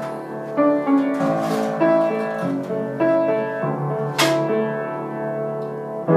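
Piano accompaniment to a slow worship ballad, playing sustained chords with a new chord struck about once a second.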